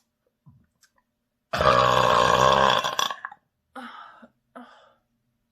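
A long, loud burp from air gulped down into the chest, lasting about a second and a half, with a wavering pitch. It follows a few faint clicks and is followed by two short, weaker sounds.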